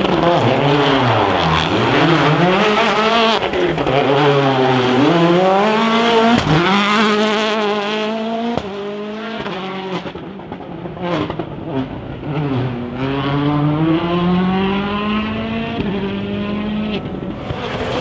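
Citroën DS3 WRC rally car's turbocharged four-cylinder engine driven hard, its pitch climbing through each gear and dropping sharply on the shifts and lift-offs for the corners. It is quieter for a few seconds in the middle.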